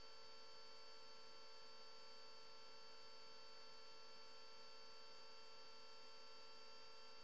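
Near silence: a faint, steady electrical hum made of several thin unchanging tones, with no engine or cockpit noise audible.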